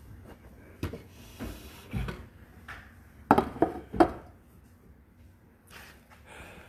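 A string of knocks and clinks as metal communion ware is handled: a bread plate, a tray of small cups and its cover. The loudest clinks come about three and four seconds in, briefly ringing.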